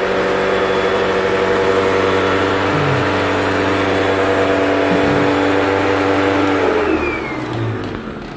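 Vacuum cleaner motor running steadily, then switched off about seven seconds in, its whine falling in pitch as it spins down.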